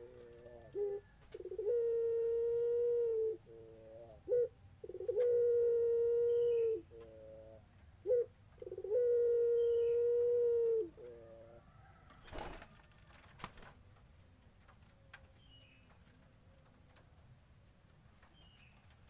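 Puter pelung dove (a white collared dove) cooing: three calls, each a few short notes and then a long, steady drawn-out coo of about two seconds that drops slightly at the end. After the third coo, a brief rustle, then only faint chirps.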